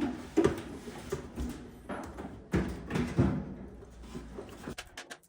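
Irregular knocks and clatter of objects being handled, over a faint steady hum, cutting off abruptly about five seconds in.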